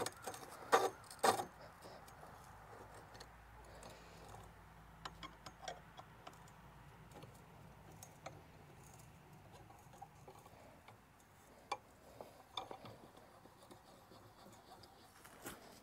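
Ratchet wrench clicking in short, sparse runs as a log clamp screw is cranked tight, with two louder knocks about a second in.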